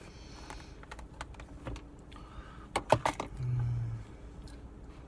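Close-up eating sounds: scattered small clicks, with a cluster of sharp clicks about three seconds in, then a short closed-mouth 'mm'.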